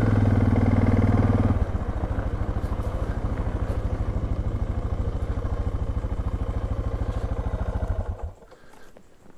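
Suzuki DR650's single-cylinder four-stroke engine slowing as the motorcycle rolls to a stop, then idling with an even, rapid beat, and switched off about eight seconds in.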